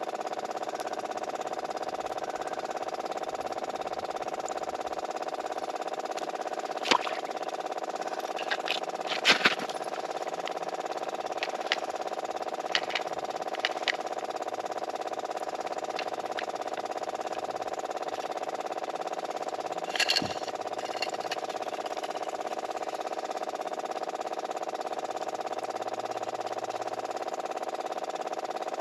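A steady motor hum that does not change in pitch or level. Over it come a few sharp clicks and knocks, the loudest about seven, nine and twenty seconds in.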